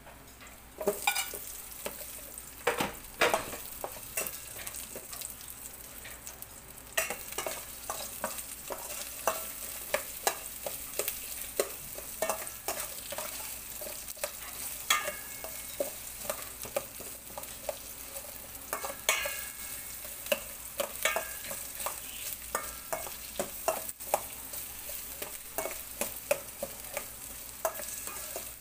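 Sliced onions with ginger and garlic sizzling in hot oil in a stainless steel pan. The sizzle picks up about a second in as the onions go in, and a metal spoon clicks and scrapes against the pan many times as they are stirred.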